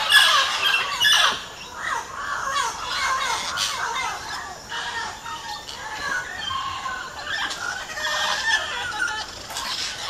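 A flock of parrots calling at once from a clay lick: a dense tangle of short, overlapping calls, loudest in the first second, then thinner but continuous.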